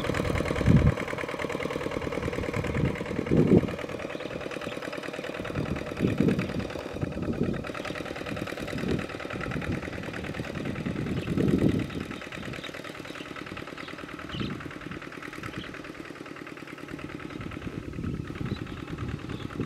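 Two-wheel walking tractor's single-cylinder diesel engine running steadily as it pulls a plow through wet mud, with irregular low thuds and splashes from the cage wheels churning the field.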